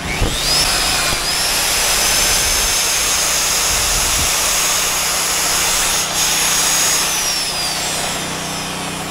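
Magnetic drill with an annular cutter boring through thick steel plate. The motor whines up to speed at the start, runs steady under the cutting noise, and winds down from about seven seconds in.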